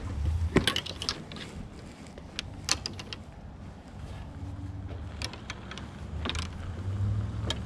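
Metal golf club irons clinking against one another as they are pulled and shuffled in a golf bag: a scattering of sharp clinks, over a steady low rumble.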